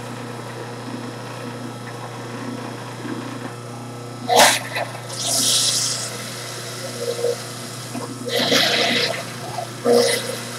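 Electric juicer running with a steady low motor hum, grinding through pieces of fennel and cucumber pushed into its chute. A few louder crunching bursts come as pieces go through: a sharp one about four seconds in, then others around five, eight and ten seconds.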